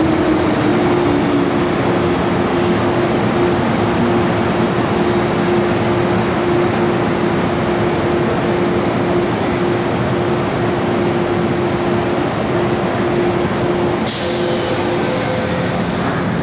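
MTR M-Train electric multiple unit, a Metro Cammell-built metro train, running slowly into the platform and braking to a stop: a steady rumble with a held, slightly pulsing tone. About 14 seconds in, a burst of compressed-air hiss lasts about two seconds as the train halts, typical of its air brakes.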